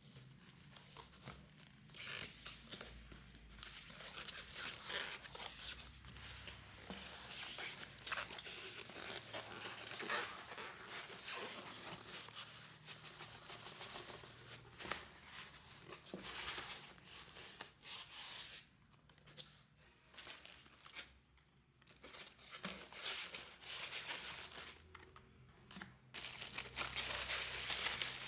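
Packaging being handled and opened by hand: irregular crinkling, rustling and tearing, with short pauses in between.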